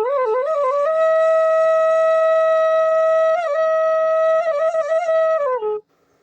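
Bansuri bamboo flute playing a melody: a few quick ornamented notes, then one long held note with small grace-note turns. The note slides down and stops near the end.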